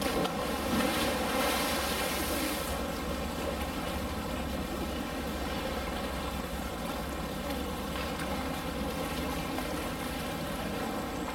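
Water washing and lapping in a polar bear pool, louder for the first couple of seconds, over a steady low hum.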